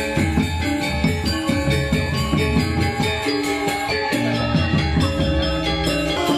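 Balinese gamelan music: metal-keyed percussion struck in a fast, dense, continuous pattern, with many ringing tones layered over a low pulse.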